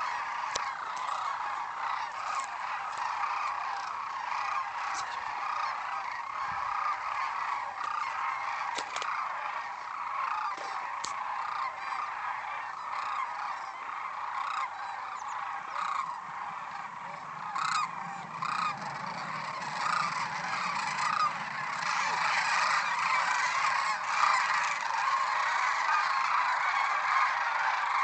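A large flock of sandhill cranes calling together: a dense, continuous chorus of many overlapping calls that grows louder in the last few seconds.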